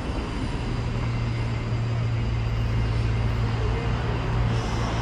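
Outdoor street ambience dominated by a steady low mechanical drone, with a faint, even background hiss over it.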